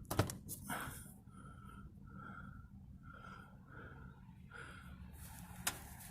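Washing machine control panel: a few clicks of the programme dial, then a series of short beeps all at the same pitch, about one a second, as the spin cycle is selected before the drum starts.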